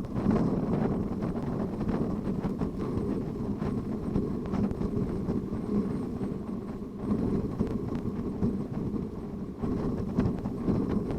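Strong wind buffeting the microphone: a low rushing noise that swells and eases in gusts.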